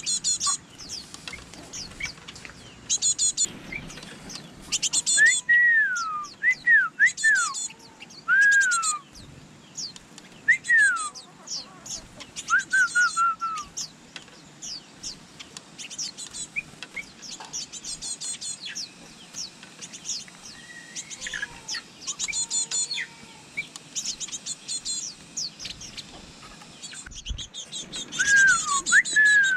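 Birds chirping: quick clusters of very high chirps, mixed with louder whistled notes that each slide downward in pitch.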